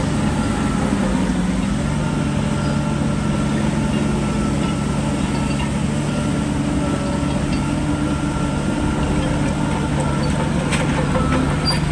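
Heavy diesel engine of earthmoving machinery running steadily, its pitch dipping briefly about a second in.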